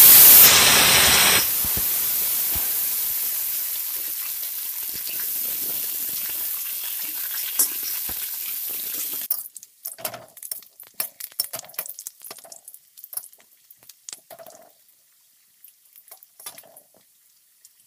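Raw potato wedges dropped into hot oil in a metal kadai, a loud burst of sizzling that settles into a steady frying hiss. About nine seconds in the sizzle cuts off suddenly, and a metal spatula scrapes and clinks against the pan as the potatoes are stirred.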